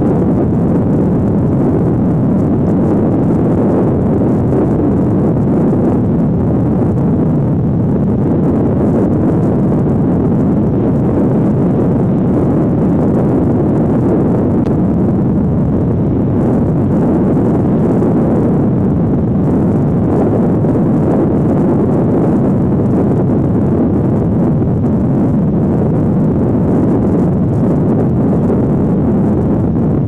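Steady wind noise buffeting the microphone: a constant rumbling rush with no distinct events.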